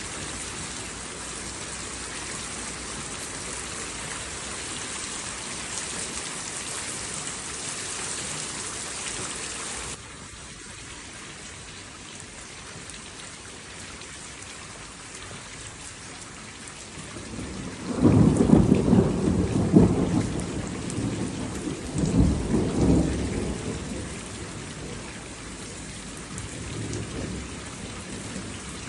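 Steady rain falling, its hiss dropping abruptly to a softer level about a third of the way in. About two-thirds through, a peal of thunder rolls in, loudest at its start, swells again a few seconds later, then fades back under the rain.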